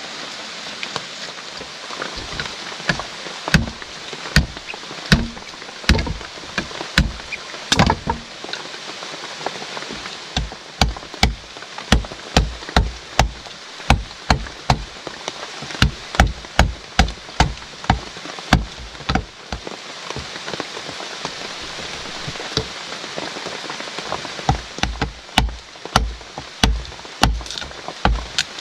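Steady rain hiss, with runs of sharp knocking thuds, about two a second, in the middle and near the end.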